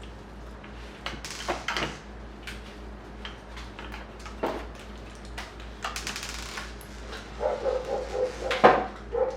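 Slime with foam beads being kneaded and stretched by hand: scattered clicks and crackles. A dog whines during the last two seconds.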